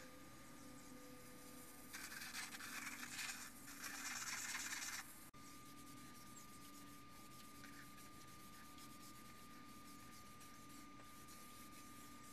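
Rag rubbing wipe-on polyurethane onto a large red oak bowl spinning on the lathe: two stretches of soft hissing friction about two to five seconds in. Then near silence with a faint steady tone.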